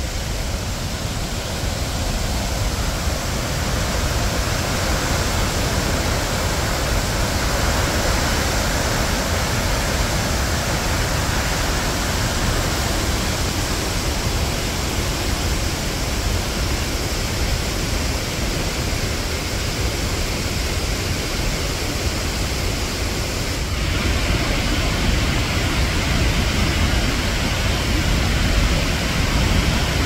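Victoria Falls' falling water: a steady, even roar. Its sound changes abruptly about three-quarters of the way through, becoming slightly louder and brighter.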